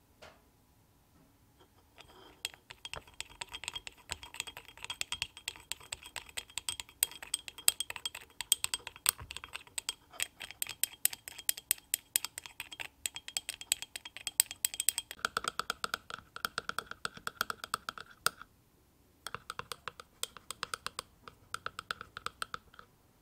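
Miniature wire whisk beating cream in a tiny ceramic bowl: fast, steady clicking of the tines against the bowl. The clicking breaks off briefly near the end, then resumes.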